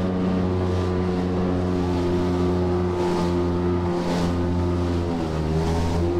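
Personal watercraft (jet ski) engine running steadily under way, its pitch sagging slightly and recovering a few times.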